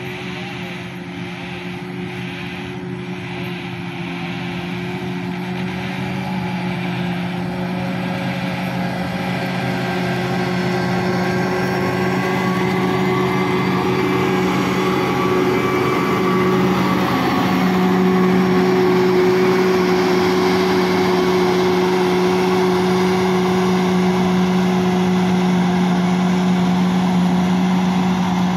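Motor grader's diesel engine running steadily under load as its blade scrapes and spreads gravel across the road, the sound growing louder over the first half as the machine comes closer.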